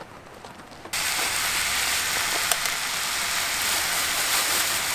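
Marinated spicy pork frying on a hot griddle pan, a loud steady sizzle that starts abruptly about a second in, with a few small crackles.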